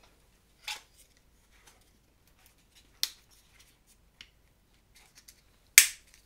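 Four sharp clicks from small plastic camera accessories being handled and fitted together. They come a second or so apart, and the loudest is near the end.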